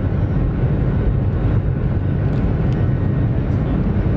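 Steady low rumble of a jet airliner's engines heard from inside the passenger cabin.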